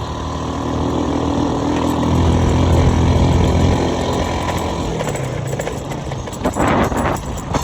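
An engine, likely on road-construction machinery, running steadily. It grows louder for a couple of seconds about two seconds in, then eases off.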